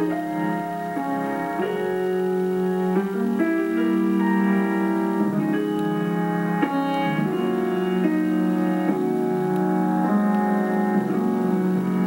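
Grand piano played slowly, with held chords that change every second or two.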